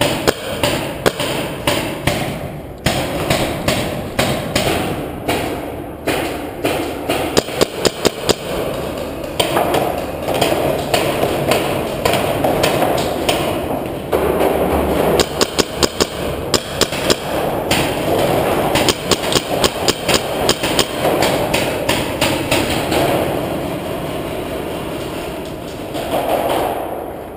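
Paintball markers firing sharp pops, often in quick strings of several a second, inside an underground cave.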